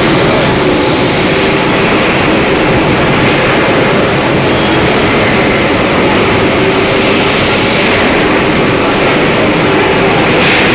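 Voronezh 4000-tonne hot forging press running, a loud steady machine drone with an even hum and no strokes. A short hiss comes near the end.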